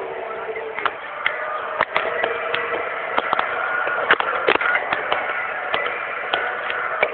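Caterpillar D10T bulldozer running under load, heard from inside the cab: a steady engine and drivetrain drone, broken by frequent sharp clanks and knocks.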